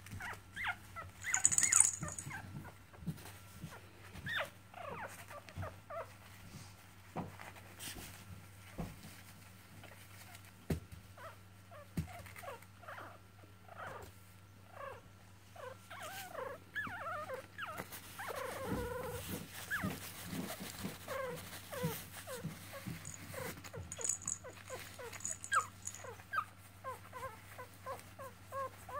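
Young Yorkshire terrier puppies whimpering and squeaking: many short, high, sliding cries throughout, coming quickly, several a second, near the end.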